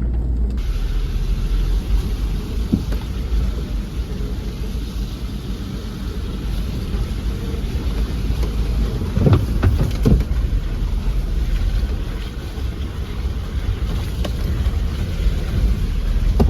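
Car driving slowly down a rough, muddy dirt track, heard inside the cabin: a steady low rumble from the engine and tyres, with a couple of knocks from the jolting car about nine and ten seconds in.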